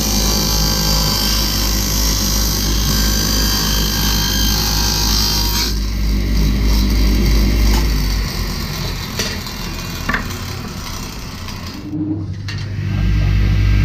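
Electric power tool running and working wood: a steady motor hum with hiss. The sound changes about six seconds in, eases off a little later, cuts out briefly near the end and then starts up again.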